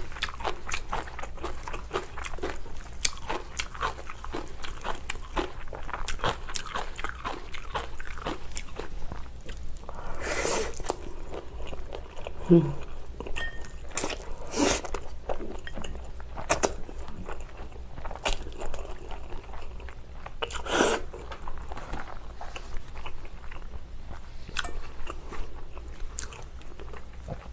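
Close-miked eating of spicy cold noodles and kimchi: a steady run of small wet chewing clicks and crunchy bites, with a few louder slurps of noodles scattered through.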